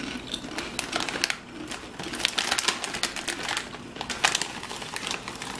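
Two people chewing Herr's creamy dill pickle potato chips, with a rapid, irregular run of crisp crunches.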